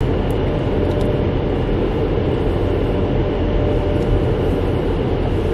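Steady low rumble of a car heard from inside its cabin, with a faint steady hum over it for the first few seconds.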